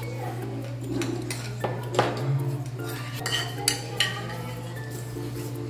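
Metal spoons and forks clinking and scraping against a stone pot and small bowls, with a cluster of sharp clinks between about one and four seconds in.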